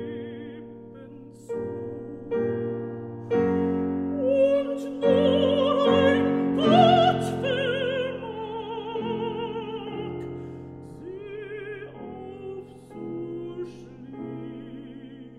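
Operatic soprano singing a German art song with strong vibrato over piano accompaniment, swelling to a loud climax about five to seven seconds in and then falling back to a softer line.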